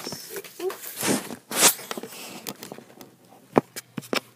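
Handling noise: rustling and scraping as the handheld camera and power cable are moved about, then a few sharp clicks close together near the end.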